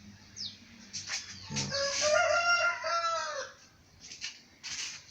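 A rooster crowing once, a drawn-out call that rises and then falls, with a few short clicks before and after it.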